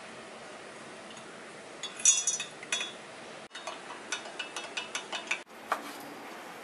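A metal spoon clinking and ticking against a glass measuring jug while stirring lemon juice into milk, in quick irregular runs. Near the end, a single knock of a knife on a wooden cutting board as chicken breast is sliced.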